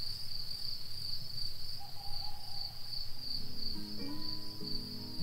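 An insect chirping in a steady, pulsing high trill, with soft music notes coming in about three seconds in.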